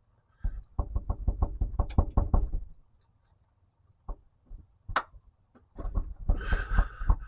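Two fast runs of sharp knocks, each lasting about two seconds, with a single sharp click between them. The knocking comes from working on a truck's drivetrain.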